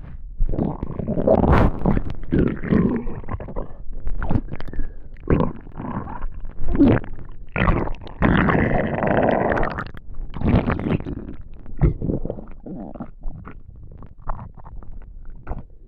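A hungry, empty human stomach rumbling and gurgling after a day without food. It comes in an irregular string of short gurgles and pops, with longer drawn-out gurgles about a second in and again around the middle.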